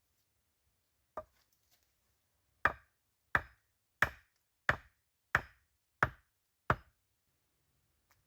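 Wood being chopped with a blade: one light blow, then seven strong, even blows about two-thirds of a second apart.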